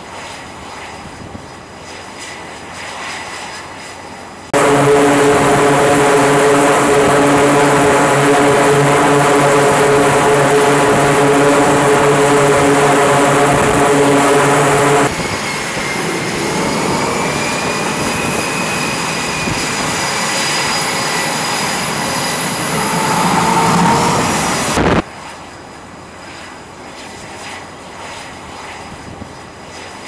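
Jet aircraft engines running on an aircraft carrier's flight deck. At first they are distant under wind noise. About four seconds in, a loud, close jet engine cuts in with a steady low drone. Midway through, this switches abruptly to a steady high-pitched turbine whine, and near the end it drops back to the distant jet noise and wind.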